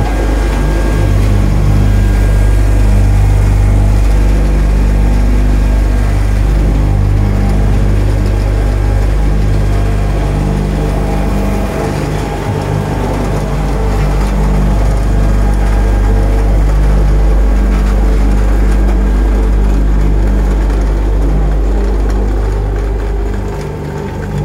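Four-cylinder diesel engine of a 1995 Hamm DV8.42 tandem roller running steadily, with a low, even hum. The sound eases off briefly near the end.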